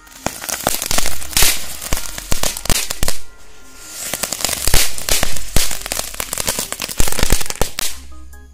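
Chakri ground-spinner firework burning, hissing out sparks with dense crackling and many sharp pops. The crackle thins to a hiss for about a second, around three seconds in, then picks up again. It dies away just before the end.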